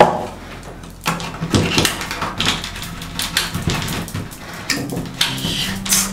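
Metal doorknob rattling and clicking as someone jiggles it while working a card into the latch gap of a jammed door lock, trying to open it. A sharp knock comes right at the start, followed by irregular clicks and scrapes.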